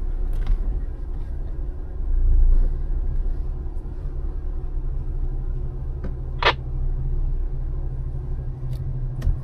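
Jeep engine idling, a steady low rumble, with one brief sharp sound about six and a half seconds in.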